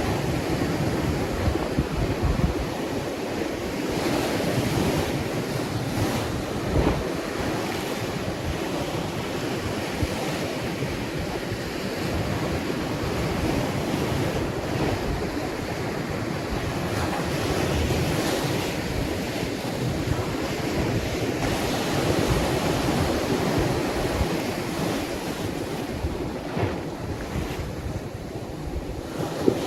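Ocean waves washing on the shore, a continuous rushing surf that swells and eases, with wind buffeting the microphone.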